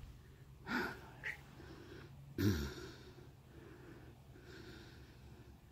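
A person breathing close to the microphone, with two short louder breaths, one just under a second in and one about two and a half seconds in, over a faint background.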